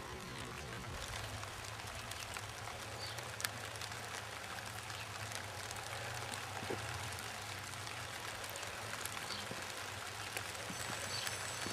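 Steady rain falling, an even hiss with a few sharp drop ticks, over a faint steady low hum.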